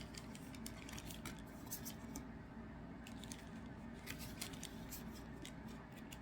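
Trading cards being handled and sorted by hand: faint, irregular flicks and slides of card stock.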